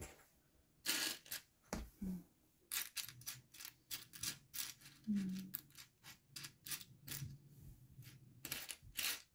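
Small plastic building bricks clattering and clicking irregularly as a hand rummages through a loose pile of pieces.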